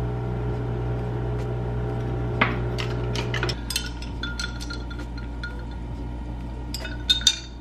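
A metal straw stirring and clinking against a drinking glass, in scattered light taps with two sharper clinks near the end. Under it a steady machine hum, from the laundry machine, cuts off suddenly about halfway through.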